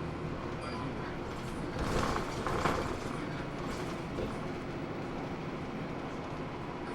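Interior running sound of a Hino Blue Ribbon II city bus: a steady low engine drone with road noise, and a couple of louder rattling knocks about two to three seconds in.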